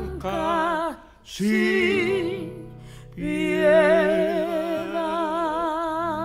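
Music: a singing voice holding long notes with a wide vibrato over a soft accompaniment, broken by two short pauses.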